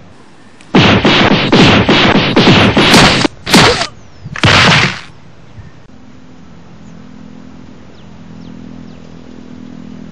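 A rapid string of loud, sharp hit-and-blast sound effects for a fight: about eight hits in under three seconds, then two longer blasts, stopping about five seconds in. A low steady hum of a distant motor vehicle runs under the rest.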